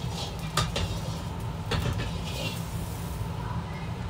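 Kitchen noise: a steady low rumble with two sharp knocks of cookware, about half a second and about a second and three quarters in, and a brief hiss near the middle.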